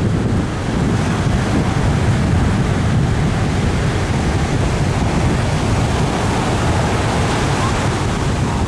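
Ocean surf breaking on the beach, a steady rushing noise, with wind buffeting the microphone.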